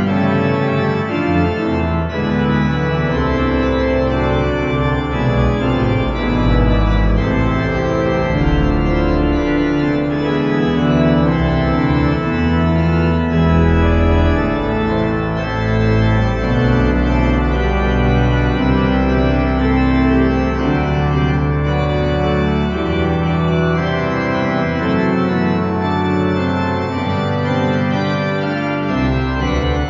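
Hauptwerk virtual pipe organ sounding the St. Mary-le-Bow sample set, played on manuals and pedals: sustained chords moving in several parts over a deep pedal bass, which drops out for a few seconds near the end.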